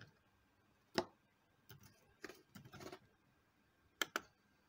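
Computer keyboard and mouse clicks during data entry: one sharp click about a second in, a run of faint taps between about two and three seconds, and two quick clicks about four seconds in.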